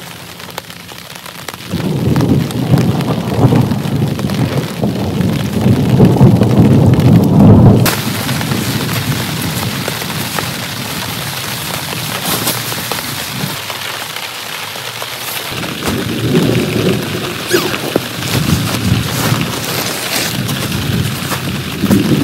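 Heavy rain falling steadily, with a loud roll of thunder rumbling for several seconds near the start that cuts off abruptly, and a fainter rumble of thunder later on.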